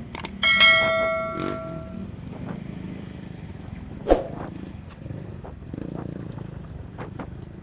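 A single metallic clang, like struck metal, ringing and fading over about a second and a half, then a short knock about four seconds in, over a low background rumble.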